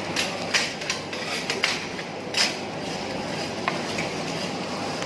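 Metal teppanyaki spatulas clinking against the griddle: several sharp strikes in the first two and a half seconds, then a steady hiss.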